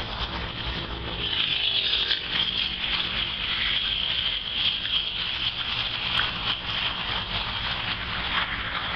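Steady outdoor background noise: a constant high hiss over a low rumble.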